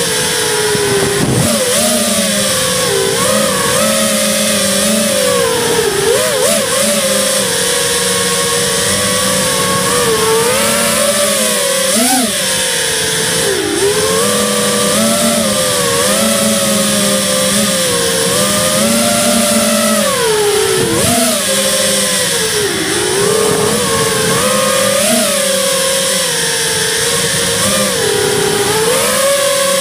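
Radio-controlled car's motor heard from on board, its pitch rising and falling again and again as the car accelerates and slows, over steady running noise. A couple of brief knocks, about a second in and again around twenty seconds.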